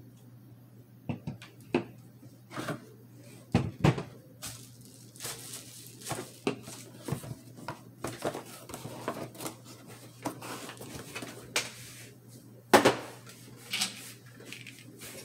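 A revolver's cardboard box, foam tray and plastic wrapping being handled and moved on a table. There is a string of knocks and taps with cardboard and plastic rustling between them, and the loudest knock comes near the end.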